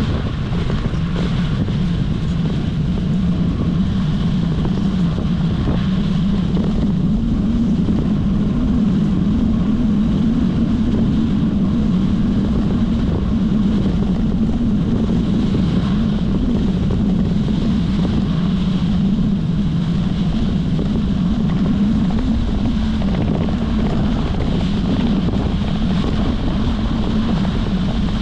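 Mountain bike's knobby tyres rolling over a sandy dirt track, a steady low drone, with wind buffeting the microphone.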